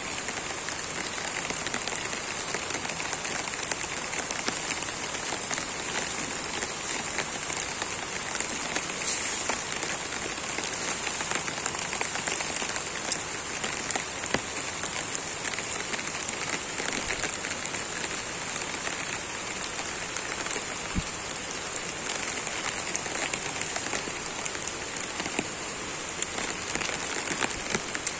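Steady rain falling, an even hiss made of many small drop hits.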